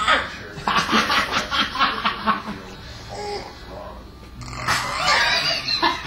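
Laughter in a run of quick rhythmic bursts, then a second bout of laughing near the end.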